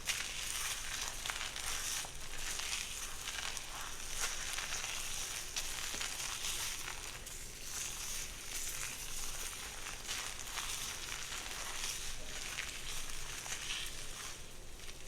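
Hair being worked close to the microphone: a crackling, rustling hiss through the hair that swells and fades with each stroke, about once a second.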